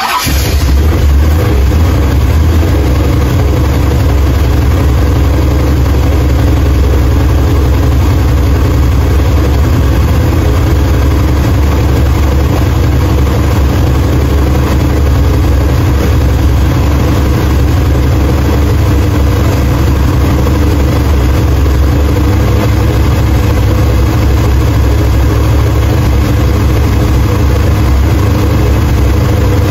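A 454 big-block Chevrolet V8 with a Thumpr cam fires up and then runs at a steady idle. This is its run after new head gaskets.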